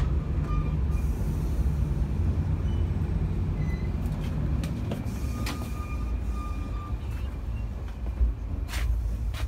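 Steady low rumble of a moving passenger train heard inside an AC sleeper coach, with a few sharp clicks and faint thin whines from the running gear.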